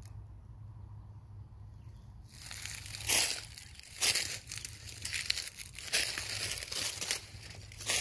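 Footsteps crunching through dry fallen leaves, starting a little over two seconds in, with a loud crunch about once a second.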